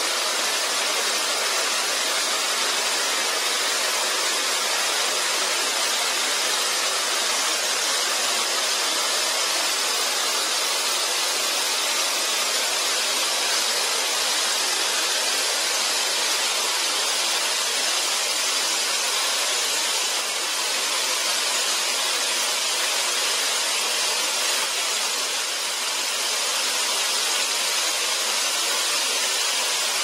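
Mitō Ōtaki, a tall mountain waterfall, pouring onto rock in a steady, loud rush of water.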